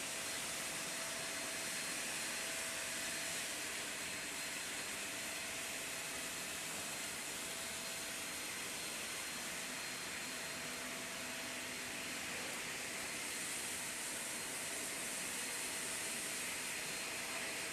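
Steady hiss of industrial finishing machinery, with a faint steady hum beneath it.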